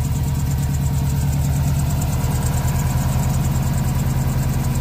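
Subaru Impreza STI's turbocharged flat-four idling steadily, with a fast, rhythmic squeaking over it. The owner believes the squeak comes from a failing air-conditioning compressor belt idler (tensioner) pulley.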